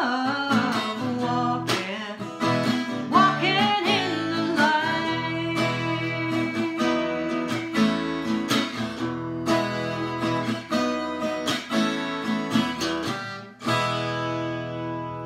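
Strummed acoustic guitar with a woman singing the closing line; her voice stops about five seconds in and the guitar carries on alone. Near the end a final chord is strummed and left to ring out and fade.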